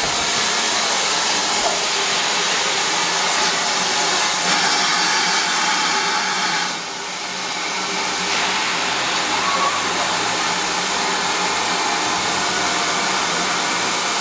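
Steam locomotive standing at the platform, a steady loud hiss of escaping steam from pannier tank No. 1501. The hiss eases briefly about seven seconds in, then comes back.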